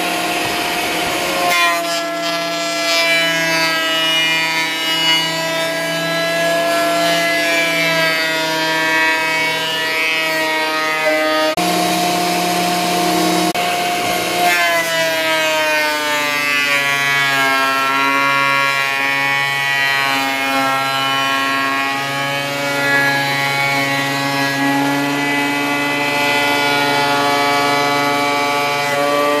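Bauer thickness planer running with a loud, steady motor whine as a 2x6 board feeds through its cutterhead; the pitch shifts several times and sags noticeably about halfway through.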